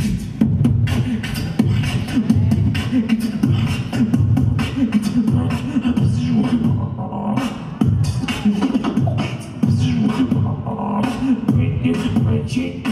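Solo beatboxing into a handheld microphone: rapid, dense mouth clicks, kicks and snares over a pitched vocal bass line that slides up and down, kept up as one continuous groove.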